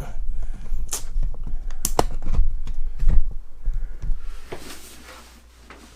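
Handling noise: a quick run of clicks, taps and knocks over a low rumble as something is moved and adjusted by hand, dying away after about four seconds.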